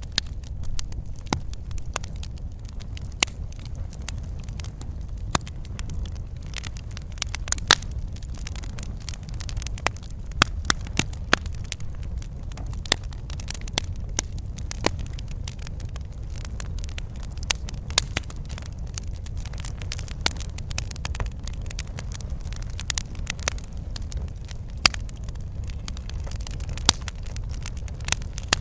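Fireplace fire crackling, with irregular sharp pops over a steady low rumble.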